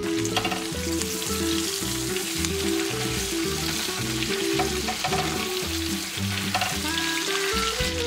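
Chicken breasts sizzling as they fry in bubbling oil in a pan, a dense steady hiss, with instrumental jazz music playing underneath.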